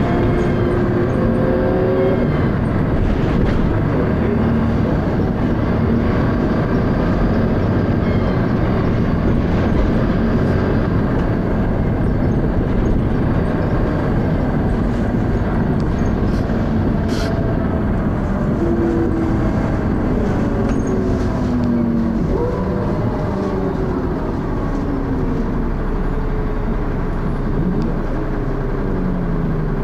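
Dennis Arrow double-decker bus running under way, its engine note rising and falling in pitch several times as it pulls through the gears of its ZF automatic gearbox, a gearbox described as slipping. A single sharp click sounds about halfway through.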